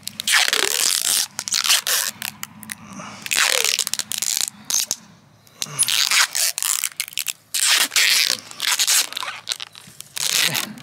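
Packing tape being pulled off its roll and wound tightly around a crown-grafted olive stump to bind the scions. It comes in a series of rasping pulls of about a second each, with short pauses between.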